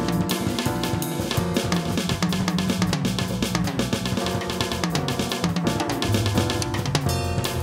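Jazz trio playing live: a drum kit busy on snare, bass drum and cymbals over a walking electric bass line and keyboard.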